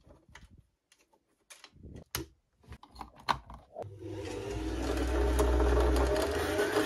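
A few light clicks and taps as a bobbin is fitted to a Janome sewing machine's bobbin winder. About four seconds in, the machine's motor starts up under the foot pedal and winds the bobbin, a steady whirr that builds up, with a slowly rising whine.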